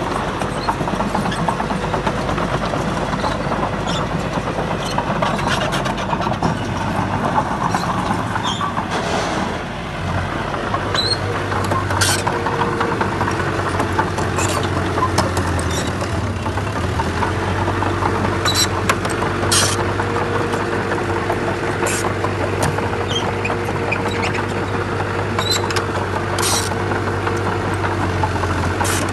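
Diesel engines of heavy earthmoving machinery, a bulldozer and dump trucks, running steadily, with sharp metallic clanks every few seconds. The engine note dips briefly about a third of the way in, then settles into a steadier hum.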